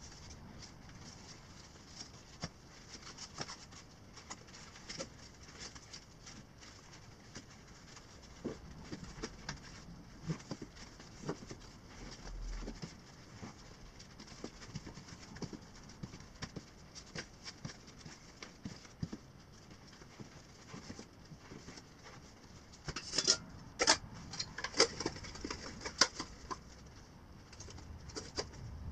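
Rustling and crinkling of a stuff sack and packed gear as it is stuffed and pressed down by hand, with scattered crackles throughout. A run of louder crinkles and knocks comes near the end.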